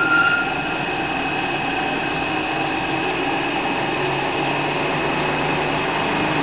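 Hardinge HLV lathe, driven by its 1.5 hp three-phase motor, running steadily under power: an even mechanical whir with a constant high whine. A higher tone fades out about half a second in.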